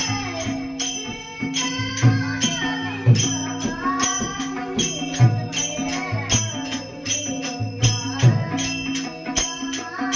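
Woman singing a Marathi devotional abhang in bhajan style, over bright percussion strikes about three a second and a low drum beat.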